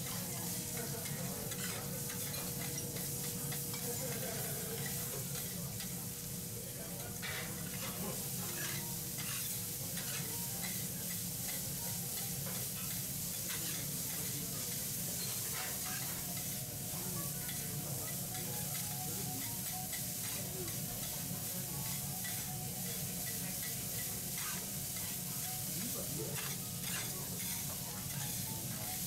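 Food sizzling steadily on a teppanyaki iron griddle, with scattered short clicks.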